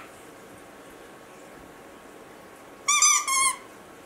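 Rubber squeaky dog toy squeaking twice in quick succession about three seconds in, as a puppy chews on it.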